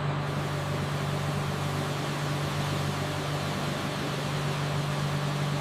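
Steady mechanical drone: a constant low hum under an even hiss, with no change in pitch, cutting off abruptly at the end.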